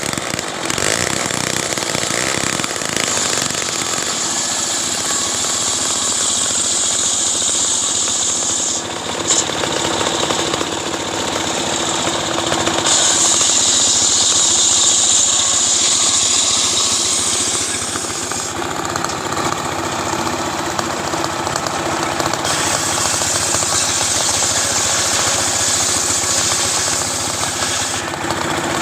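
Stihl chainsaw running under load, cutting through wood, with stretches of several seconds where the cutting hiss grows louder and then eases off.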